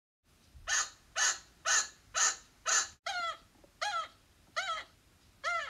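Chinchilla alarm calling: a run of five loud calls, about two a second, then, after a short break about three seconds in, slower calls, each rising and then falling in pitch. Chinchillas give this call when something has upset or startled them.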